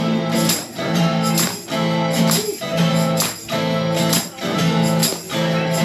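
Instrumental music: acoustic guitar strumming chords in a steady rhythm with a tambourine keeping time, no singing.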